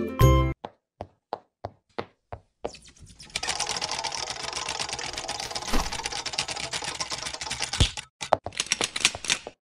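Animation sound effects: a run of single sharp taps, about four a second, then a fast, dense clattering rattle like typing, with a few louder knocks. The rattle breaks off briefly near the end, then returns as separate clicks.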